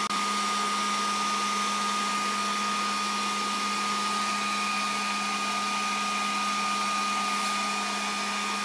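Makita 18V cordless heat gun (DHG181) running steadily on its high setting, a constant rush of blown air with a thin high whine from its fan motor, as it heats PVC electrical conduit until it goes soft.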